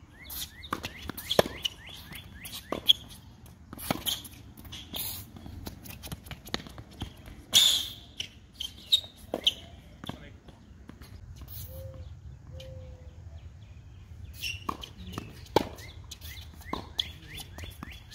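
Tennis balls struck by rackets and bouncing on an outdoor hard court during a rally: a string of sharp pops spaced a second or more apart, with a quieter stretch in the middle.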